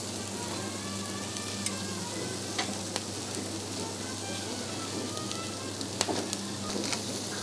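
Steady sizzling of snails and dripping fat cooking on a grill over wood embers, with a few sharp crackles, the loudest about six seconds in.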